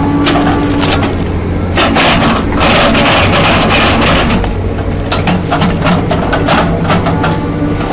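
Heavy machine engine running steadily, with many sharp cracks and clicks over it and a denser, louder stretch of noise from about two to four seconds in.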